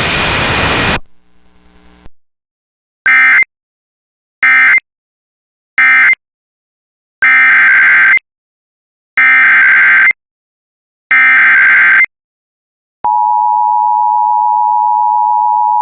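Emergency Alert System data tones. Three short warbling bursts close out the previous alert, then three longer bursts carry the header of the next one. After that the steady two-tone attention signal starts and holds.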